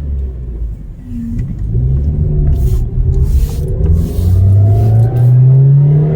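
Car engine accelerating, heard from inside the cabin, its note climbing steadily over the last couple of seconds.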